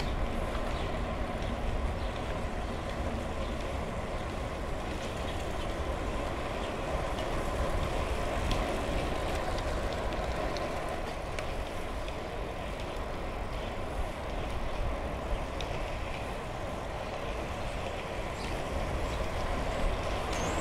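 Steady rolling noise of a bicycle ridden along an asphalt path, with faint light ticks scattered over it.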